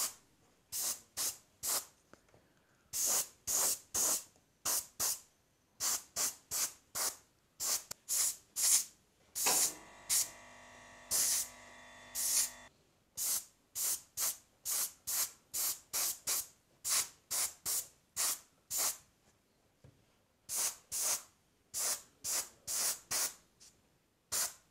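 An airbrush spraying dark metallic paint in dozens of short bursts of hiss, two or three a second: quick light shots to dust the parts for a metallic sheen rather than full coverage. A quieter steady hum runs for about three seconds midway.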